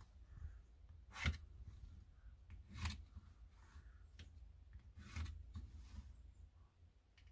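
Quiet handling sounds of a wooden bowl blank and a plastic template on a workbench: three short scrapes, about a second in, near the middle and about two-thirds through, over faint low rumble.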